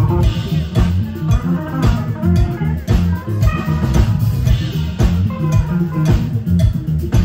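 Live rock band playing: electric guitar over bass guitar and drum kit, with a steady beat of drum hits.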